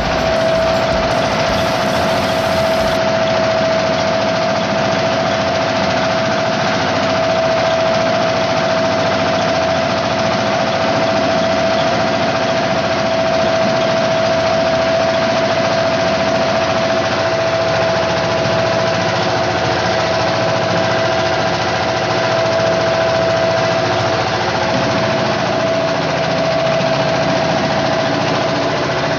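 Engine of a small wooden fishing boat running steadily under way, heard from on board, with a constant hum over it and no change in speed.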